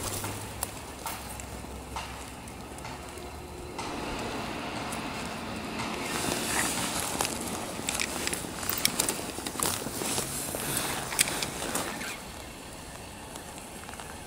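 Rustling and crackling with scattered light clicks, busiest in the middle: handling noise from a jacket sleeve and a cork-handled fishing rod close to the microphone.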